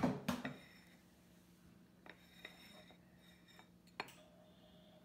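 Brief handling clatter, then a few faint clicks and one sharp tap about four seconds in: an upturned glass mason jar being held and shifted on a ceramic plate, over a faint steady hum.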